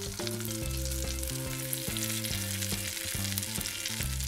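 Bacon-frying sizzle sound effect, a steady crackling hiss, over soft background music.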